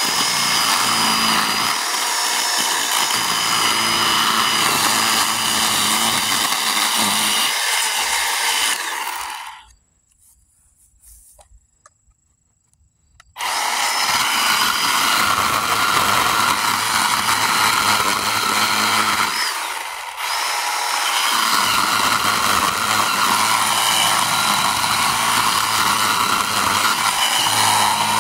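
Craftsman V20 10-inch cordless battery chainsaw cutting into a hardwood stump: a steady motor whine with the chain rasping through the wood. It stops about nine seconds in for a few seconds of quiet, then starts again and runs on, easing off briefly in the middle of the second cut.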